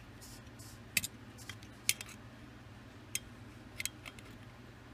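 A handful of light, sharp metallic clicks and taps, spaced irregularly about a second apart, as a steel digital caliper is slid and its jaws are set against the bore of an aluminium two-stroke cylinder. A faint steady hum sits underneath.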